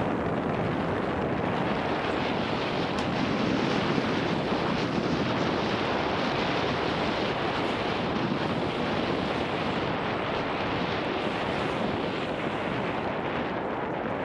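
Steady rush of wind over the camera's microphone, mixed with the rolling noise of mountain-bike tyres on a dirt trail at speed.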